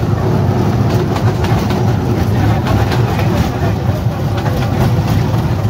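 Small tourist train running at low speed, heard from aboard its open carriage: a steady low engine rumble with light rattling.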